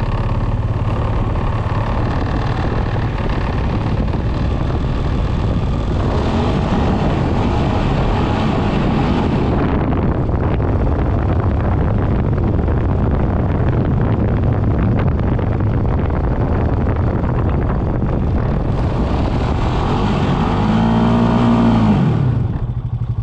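ATV (four-wheeler) engine running steadily, then revving up and back down about three-quarters of the way through.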